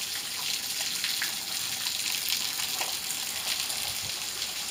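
Rain falling steadily: an even hiss of water.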